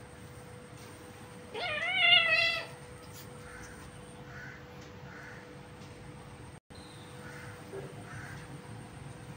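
A kitten gives one loud, wavering meow lasting about a second, about one and a half seconds in, while wrestling with another kitten.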